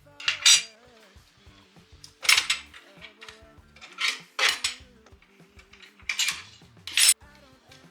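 Hard parts clattering as they are handled, in about six short bursts each under half a second, over quiet background music.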